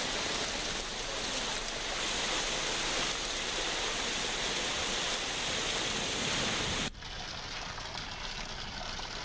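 Heavy rain pouring down, a steady hiss. About seven seconds in it cuts abruptly to a quieter, duller rush of water splashing into standing water.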